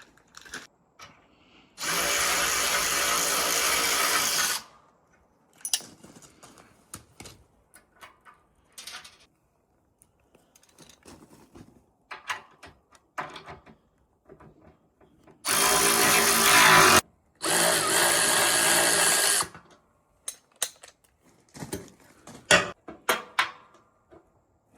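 Power drill running in three steady bursts of a few seconds each, about two seconds in and twice in quick succession past the middle, fastening metal plow markers to a snow blade. Scattered clicks and clinks of parts and tools being handled come between the bursts.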